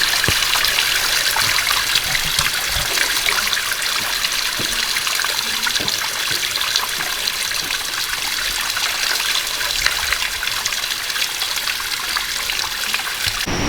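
Water running steadily in a small stream, a continuous even rush.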